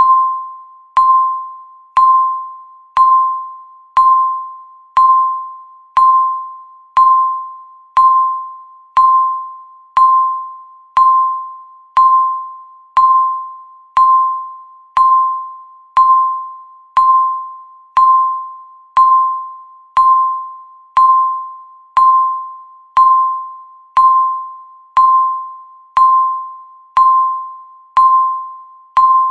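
Digital countdown timer beeping once a second: a single electronic ding at the same mid pitch each time, starting sharply and fading away before the next one.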